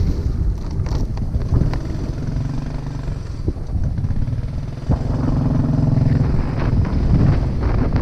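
Small motorcycle's engine running as it rides off along a gravel track, getting louder about five seconds in.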